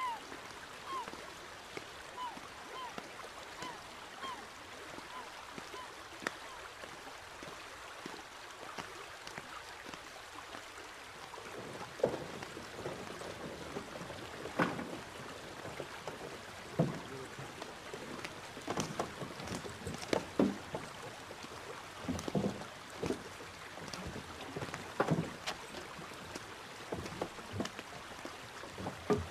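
Wooden boat creaking and knocking, with irregular wooden knocks and steps on planks as people board, over a faint steady hiss of water. A run of short repeated chirps sounds in the first few seconds, before the knocks begin about twelve seconds in.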